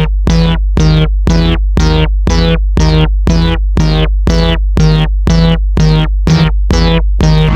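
Japanese railroad crossing warning bell ringing in a steady rhythm of about two strokes a second, each strike sliding down in pitch at the top, over a continuous low hum, in an electronically treated version.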